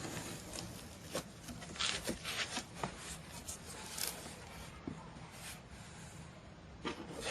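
Packaging being opened and handled: irregular rustling and rubbing with scattered light knocks as contents are pulled out of the box.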